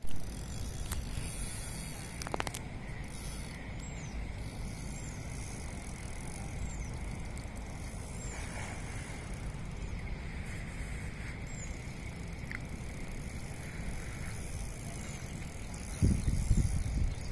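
Outdoor ambience dominated by a steady low rumble of wind on the microphone, with a few faint high chirps and one sharp click a couple of seconds in; the rumble swells louder near the end.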